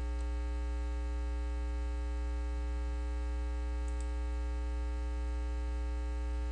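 Steady electrical mains hum and buzz in the recording, a constant low drone with a stack of even higher tones over a faint hiss. A faint small tick about four seconds in.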